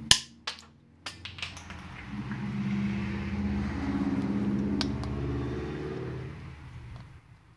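A tube cutter snaps shut on 3/4-inch PEX-Al-PEX air tubing with one sharp click, followed by a few lighter clicks as the tube is handled. Then a low hum swells for a couple of seconds and fades away.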